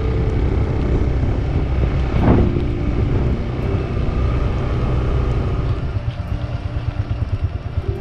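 Motorcycle engine running while riding, with wind on the microphone and a brief louder swell about two seconds in. Near the end the sound turns into an even pulsing of the engine.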